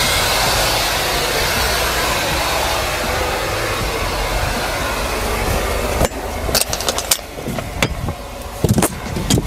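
A loud, steady rushing noise over the low hum of the idling truck for about six seconds, then a run of sharp metallic clanks and knocks as the trailer's rear door locking bars are worked open.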